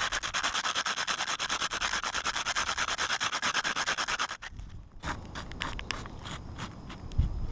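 A piece of asphalt shingle rubbed rapidly back and forth like sandpaper over a patch of wet roofing cement on a shingle roof, grinding off granules to coat the patch so it blends in. The quick, even scraping strokes stop about four and a half seconds in, and a few fainter scratches follow.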